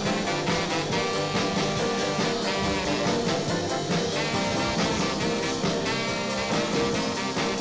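Background music: an upbeat swing number with brass, trombone and trumpet, playing steadily.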